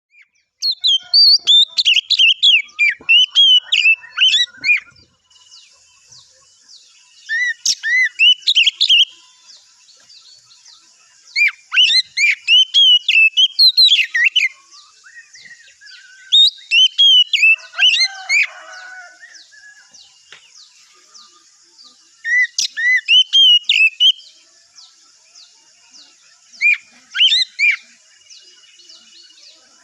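Oriental magpie-robin (kacer) singing in bursts of rapid, varied whistled phrases, each a second or a few seconds long, with pauses of a few seconds between them. A steady high hiss sits under the song from about five seconds in.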